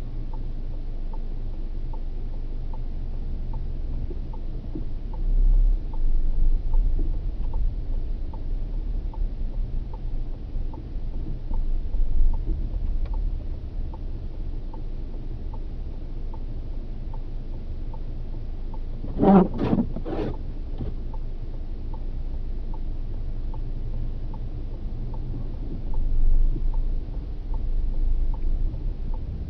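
Car cabin sound as the car creeps forward in snowy traffic: a low engine-and-road rumble that swells several times as the car pulls ahead. Under it runs a steady ticking, a little over once a second, like a turn-signal indicator. A short double sound comes about two-thirds of the way through.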